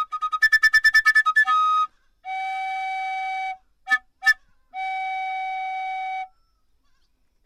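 Melody on a flute-like wind instrument: a run of rapid repeated notes, then two long held notes with two short notes between them, and a brief pause near the end.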